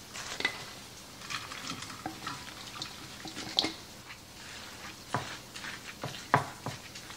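Wooden spoon stirring and scraping a wet shredded potato and zucchini mixture, first in a stainless steel bowl and then spread out in a glass baking dish. A few sharp knocks come in the second half.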